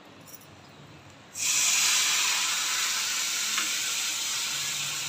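Sizzling in a steel kadai on a gas stove, the lemon rice tempering frying in hot oil. It starts suddenly about a second and a half in and then slowly fades a little.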